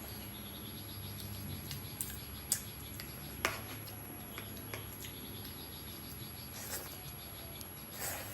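Close-up eating sounds of gado-gado in peanut sauce: wet chewing and mouth smacking, with a few sharp clicks, the loudest about two and a half and three and a half seconds in.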